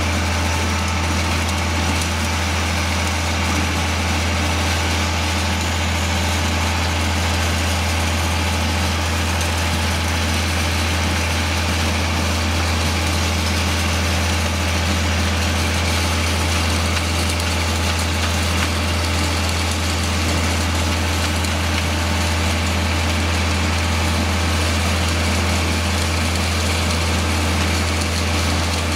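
Concrete pump truck's engine running steadily at a constant speed, a strong, even low drone with no change.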